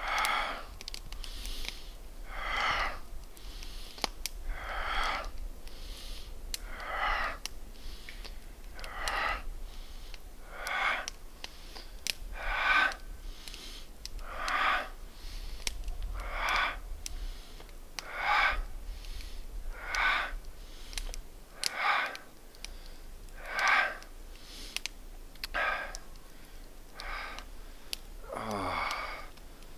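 A man breathing hard and rhythmically in and out, about one breath a second, each breath paced with a joint-mobility movement.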